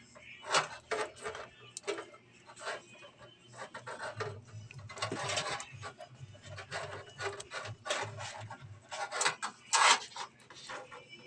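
Irregular scraping, rubbing and clicking as parts are handled and fitted into a PC case while its front ports are installed, with a longer scrape about five seconds in and a sharp, loud scrape near ten seconds.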